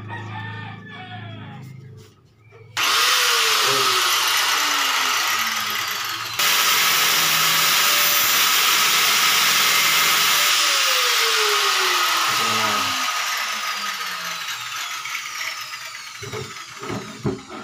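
A corded handheld power tool starts about three seconds in and runs loud with a harsh, hissing grind, getting louder again around six seconds. It is switched off after about ten seconds and winds down with a falling whine. A few short knocks follow near the end.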